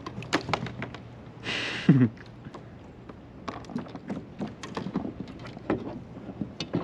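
Knocks and clicks of gear being handled on a kayak, with a short burst of hiss about a second and a half in and a brief, loud falling tone just after it.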